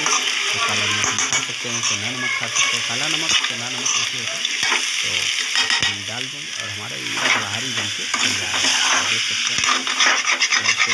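Potato pieces and peanuts being stirred and scraped around a metal kadai with a slotted metal spatula, over a steady sizzle of frying; the scraping strokes come quicker near the end.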